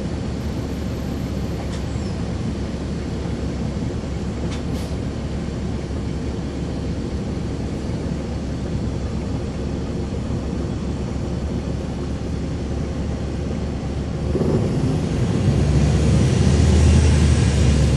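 Caterpillar C13 diesel engine of a NABI 40-foot transit bus running, heard from the rear seats inside the bus over steady road noise. About fourteen seconds in, the engine grows louder with more low rumble.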